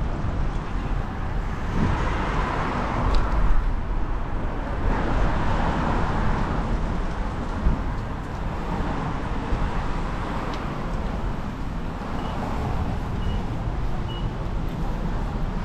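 City street traffic: cars passing on wet pavement with a tyre hiss that swells twice as vehicles go by, over a steady low rumble. Three short high beeps sound near the end.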